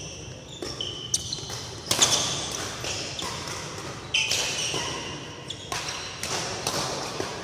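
Badminton rally: rackets striking the shuttlecock with sharp cracks every second or so, the loudest about two seconds in, between short high squeaks of shoes on the court floor.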